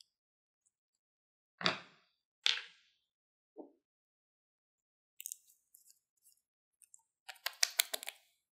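Two sharp knocks and a softer one as small cosmetic containers are put down and picked up on a hard surface, then a few light clicks and a quick run of gritty clicks as the cap of a glass nail polish bottle is twisted off.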